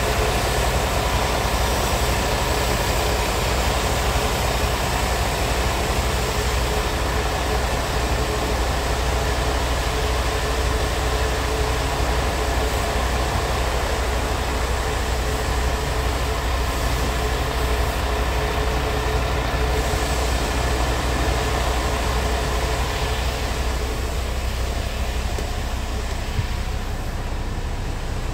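Scania G-series tractor unit's diesel engine idling steadily, a constant low hum heard from inside the cab.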